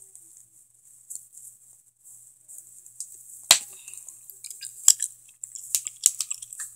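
Scattered sharp clicks and crackles of stiff plastic doll packaging being pulled at by hand, mostly in the second half, with the two loudest snaps about three and a half and five seconds in.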